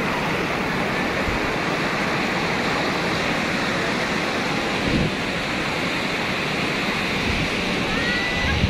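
Ocean surf: waves breaking and foamy swash washing up a sandy beach, a steady hiss of water.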